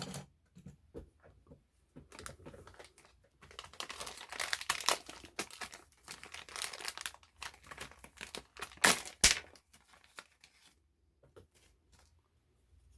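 Plastic packaging crinkling and tearing in irregular handfuls as an RC truck's plastic spoiler is unwrapped, with a couple of sharper crackles about nine seconds in.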